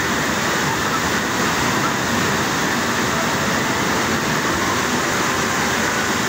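Steady rushing water of an amusement-park river rapids ride, an even, unbroken wash of noise.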